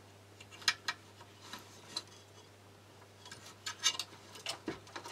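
Light clicks and taps of small parts and wire ends being handled during bench assembly of electronics, scattered through and busiest between three and four seconds in, over a faint steady low hum.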